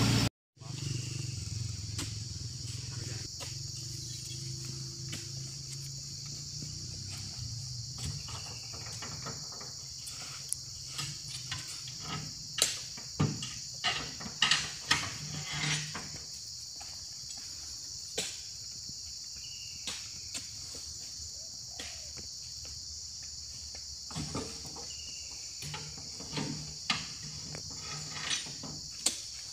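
A steady, high-pitched drone of insects, broken by irregular thuds and knocks as oil palm fruit bunches are pitched up into a truck's cargo bed. The knocks come more often in the second half.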